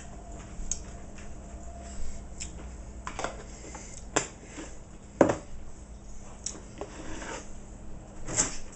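Handling of a plastic tub on a wooden counter: a scattered series of clicks and knocks, the loudest about five seconds in.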